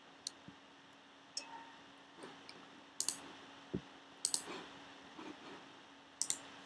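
Quiet, scattered clicks from operating a computer while working in the Mac Finder, several coming in quick press-and-release pairs, over a faint steady hum.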